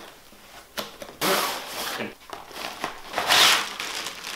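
A bagged monopod being slid out of its cardboard box: cardboard scraping and plastic bag rustling in several loud swishes, starting about a second in and loudest just past three seconds.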